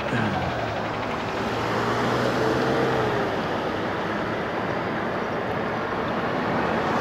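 Steady street traffic noise with vehicles driving by, and a car horn honking at a stoplight, typical of a driver distracted at the light.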